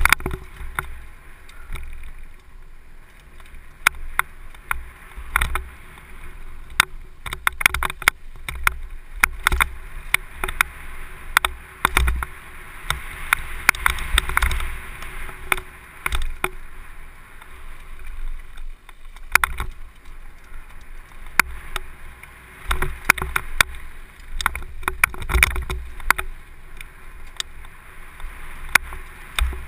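Downhill mountain bike riding fast over a rough dirt and rock trail, recorded from a helmet camera: frequent sharp clicks and rattles as the bike hits bumps, over a steady hiss of tyres on dirt and low wind rumble on the microphone.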